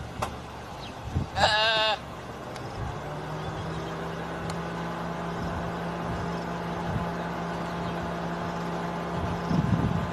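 A young impala bleats once, a wavering call of about half a second, about a second and a half in. A vehicle engine then idles with a steady low hum.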